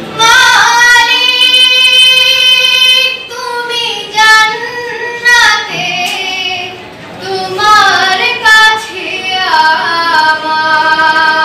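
A girl singing solo and unaccompanied, holding long ornamented notes in several phrases with short breaths between them.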